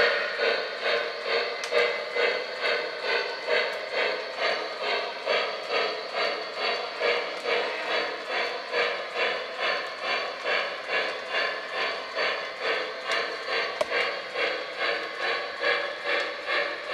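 2-8-2 model steam locomotive chuffing steadily at about two chuffs a second, with a hiss of steam under the beat.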